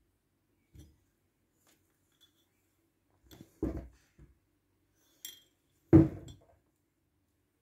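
Handling noises: a few separate knocks and clinks of hard objects being moved and set down on a surface. The loudest knock comes about six seconds in.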